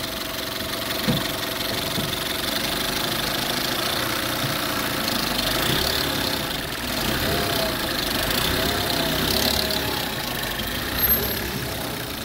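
1.4 TSI petrol engine idling steadily, with a noise from the timing chain area that persists although the chain has been replaced twice. Two brief clicks stand out, about a second in and near the end.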